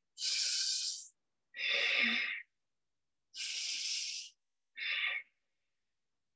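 A woman breathing slowly and audibly in and out through her nose: four breath sounds, about a second each, with short silences between them, the fourth one shorter.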